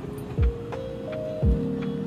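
Background music: held chords with two deep kick-drum hits and light ticking percussion.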